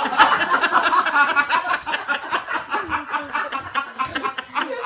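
Several people laughing hard together in quick, rapid bursts.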